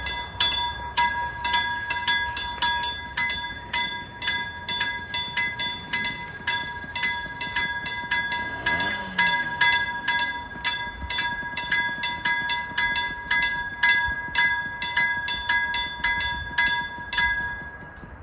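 Railway level-crossing warning bell ringing, rapid even strikes a little over two a second, each ringing on in a steady metallic tone; it stops shortly before the end.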